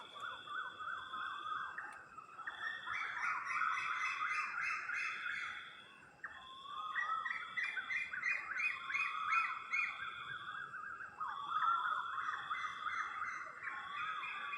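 Night-time chorus of calling animals: many overlapping, repeated rising chirps, over a high whirring call that pulses on and off about once a second. The chirping thins out briefly about six seconds in.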